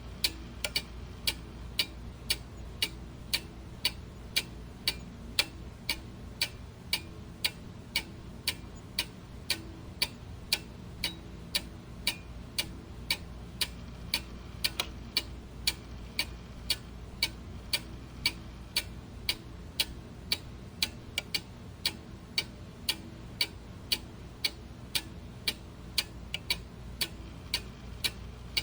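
Clock ticking steadily, about two sharp ticks a second, over a faint low steady hum.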